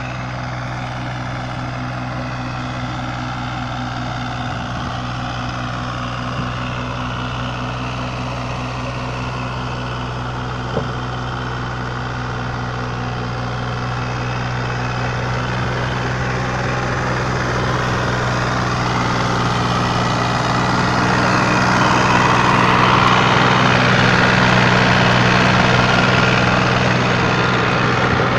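Engine of a Hinomoto Japanese mini tractor running steadily while rotary tilling, growing louder from about halfway through to a peak near the end. A single sharp click about ten seconds in.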